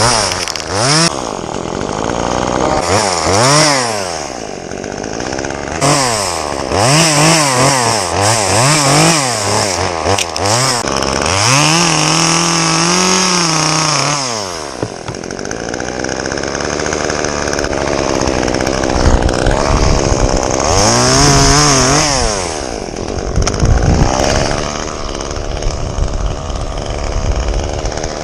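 Chainsaw engine revved up and down again and again, held at high speed for a couple of seconds about midway, then running lower and steadier before another quick rev.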